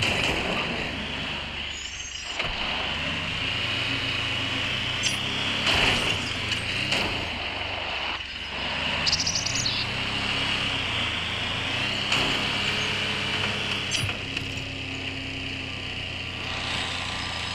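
4x4 engine running steadily, with occasional knocks and thumps. A bird chirps briefly twice.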